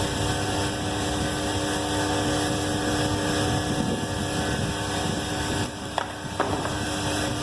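Automatic motor brush welding machine running with a steady mechanical hum. Near the end the hum dips and two sharp clicks come close together.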